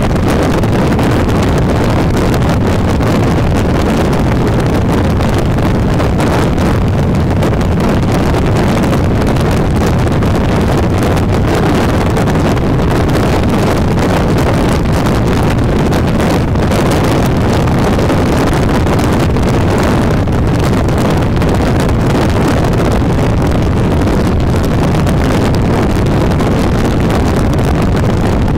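Steady road and wind noise of a car driving at highway speed, with wind buffeting the microphone.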